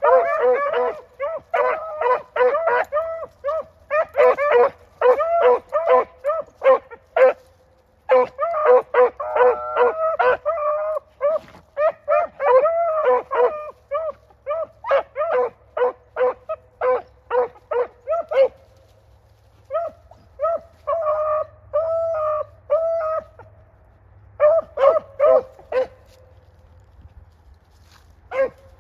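Rabbit hounds baying on a trail, in rapid runs of short, pitched barks that at times overlap. There are a few brief pauses in the second half.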